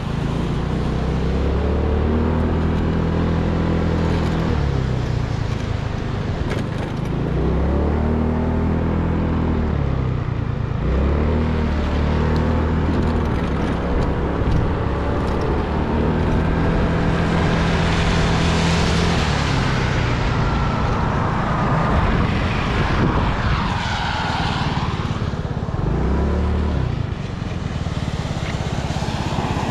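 A vehicle's engine running while driving. Its pitch climbs and levels off several times as it speeds up and eases off. Two rushing swells of noise from passing traffic come about two thirds of the way through.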